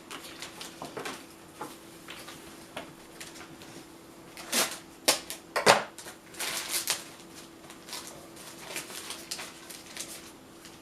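Stickers and their packaging being handled and flipped through by hand: light rustling and crackling, with a cluster of louder crinkles and snaps in the middle. A faint steady hum runs underneath.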